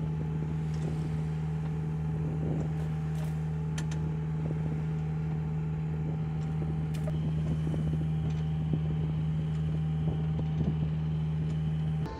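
Sailing yacht's inboard engine running at a steady speed while motoring: a constant low drone, with a few faint clicks.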